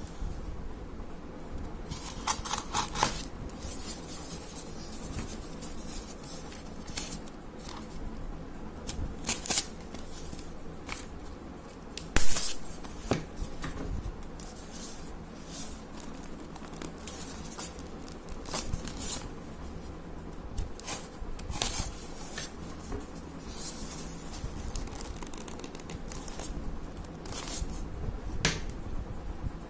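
Hands turning over and rubbing a taped styrofoam parcel box, with scattered scraping and rustling handling noises and a sharp knock about twelve seconds in.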